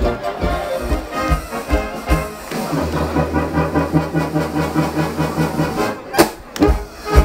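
Traditional German brass band (Blasmusik) playing live, with tuba, trombones and trumpets. A low bass note is held through the middle, and a few sharp percussive hits come near the end.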